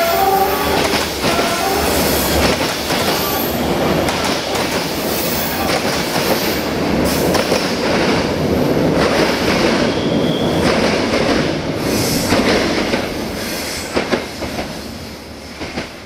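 Passenger coaches of a train rolling past and into a curved tunnel: steady wheel rumble and clatter over the rail joints, with some wheel squeal, fading away as the last coach goes in, with a few sharp clacks near the end. The tail of a locomotive horn blast cuts off just at the start.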